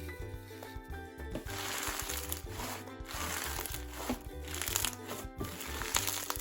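Background music, with a crunchy hybrid slime full of Bingsu beads and microbeads being squeezed and pressed by hand. From about a second and a half in it crackles and pops in repeated waves.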